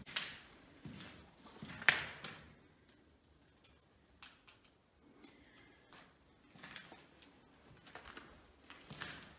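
Two sharp knocks about a second and a half apart, then scattered faint clicks and soft shuffling knocks.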